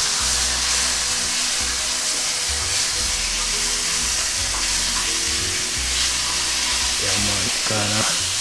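Fish steaks sizzling steadily as they fry in a little hot oil in a non-stick frying pan, turned over with a fork.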